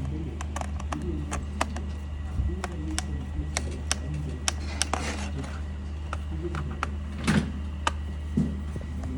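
Irregular sharp clicks and taps of a laptop's case and parts being handled, with a couple of short scraping sounds, over a steady low electrical hum.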